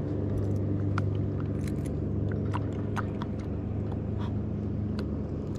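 Steady low engine hum in the background, with light scattered clicks and taps from a baitcasting rod and reel being handled.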